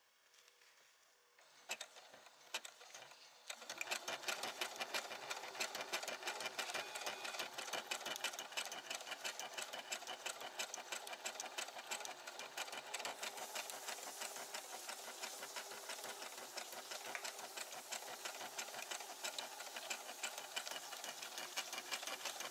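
Sewing machine stitching a journal cover, a fast, even run of needle ticks that starts about three and a half seconds in after a few light handling noises and keeps going steadily.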